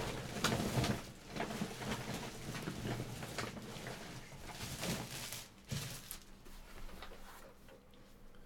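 Packaging trash being pressed down into a bin: irregular rustling and crackling that thins out about six seconds in.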